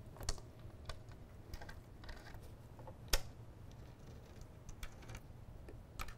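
Scattered light clicks and taps of bolts and washers being fitted and hand-screwed into a game table's leg panels, with one sharper knock about three seconds in.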